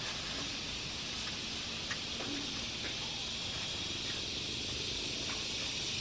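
Wood fire burning under an empty wok, giving a few faint crackles over a steady high hiss.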